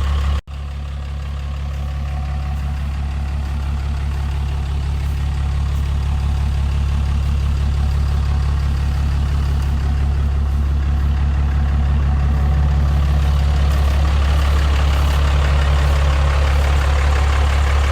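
Vehicle engine idling steadily just after a tune-up, a low even hum that drops out briefly about half a second in and then slowly grows louder.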